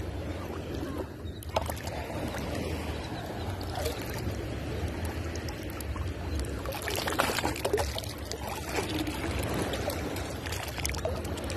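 Shallow seawater sloshing and splashing as a stainless steel sand scoop is pushed into the sandy bottom, louder around seven seconds in, over a steady low rumble.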